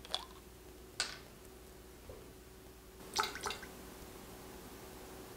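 A few faint clicks and small ticks from a small glass essential-oil bottle being handled and tipped over a metal wax pour pitcher while the oil is added: one sharper tick about a second in and a couple more a little after the middle, over a faint steady hum.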